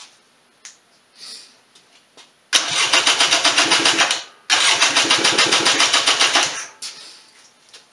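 A 1996 Polaris Sportsman 400 two-stroke engine is cranked by its electric starter, powered through jumper cables, in two bursts of about two seconds each with a short pause between. Each burst is a fast, even chugging, and the engine does not catch in either one.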